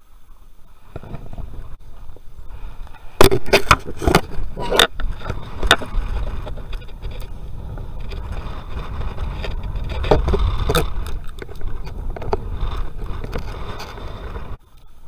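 Close handling noise of hands breaking up a blue crab for bait right against the microphone: low rubbing and rustling, with a run of sharp cracks of crab shell about three seconds in and again around ten seconds. The noise stops suddenly near the end.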